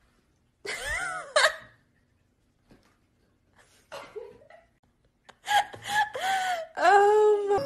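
A woman laughing in high-pitched bouts: a burst about a second in, a short one around the middle, and a longer run of laughter near the end.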